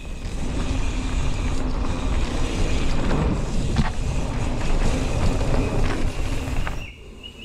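Wind buffeting a moving action-camera microphone with the rumble of mountain-bike tyres on a dirt jump trail, with a couple of short knocks from the bike. The rumble drops away about seven seconds in, leaving a bird chirping.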